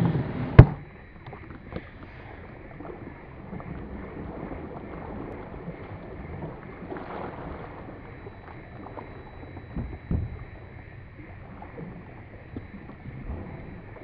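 Steady low rush of wind and water at the surface, with one sharp knock about half a second in and a softer low bump around ten seconds in.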